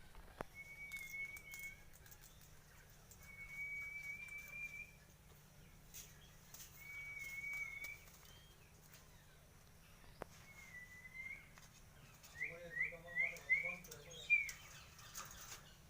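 Pet parrot whistling: four long, level notes of about a second each, spaced a few seconds apart, then a quick run of about five short rising chirps near the end, which are the loudest part. A few faint clicks fall between the notes.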